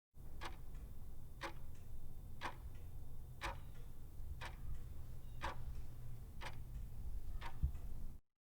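Steady ticking like a clock, one tick a second, eight in all, over a low steady hum; it stops abruptly near the end.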